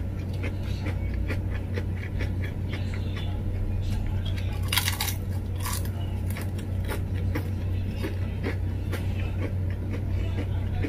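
Close-up eating sounds: wet mouth clicks and chewing of rice eaten by hand, with two louder crisp crunches about five and six seconds in as a black ghost-pepper potato chip is bitten. A steady low hum runs underneath.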